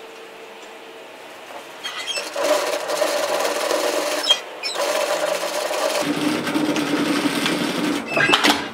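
Straight-stitch sewing machine stitching a seam in runs. It starts about two seconds in, pauses briefly midway, runs at a lower pitch for a while, then gives a short final burst just before stopping.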